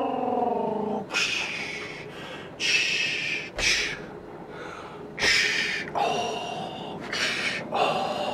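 Non-speech vocal sounds: a drawn-out voice falling in pitch over the first second, then about five short breathy puffs spread through the rest.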